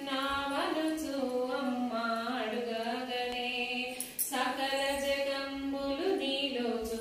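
A woman singing a Hindu devotional song unaccompanied, holding long notes and sliding between pitches, with a brief pause for breath about four seconds in.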